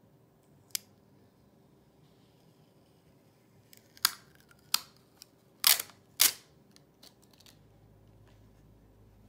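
Clear plastic iPod shuffle packaging case crackling and snapping as its clear seal sticker is picked at and peeled away: one sharp click about a second in, then a run of louder crackles and snaps from about four to six and a half seconds.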